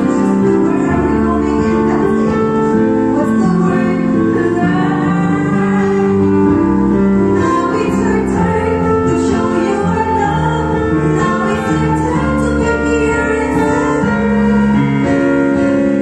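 A woman singing a slow song into a microphone over an instrumental backing track, holding long notes.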